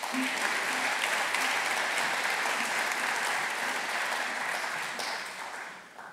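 Audience applauding steadily, the clapping fading away near the end.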